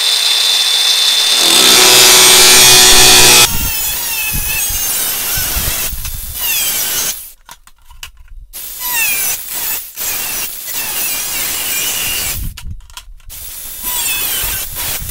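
A DeWalt 20V Max cordless angle grinder with a 4 1/2" cut-off wheel cutting through sheet metal. The motor is loudest for the first few seconds, then its whine wavers and slides in pitch as the wheel bites. The cut stops briefly twice, about seven and thirteen seconds in.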